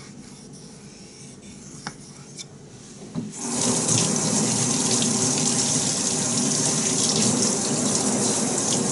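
Water tap running steadily into a stainless-steel sink, turned on about three seconds in, after a few faint clicks.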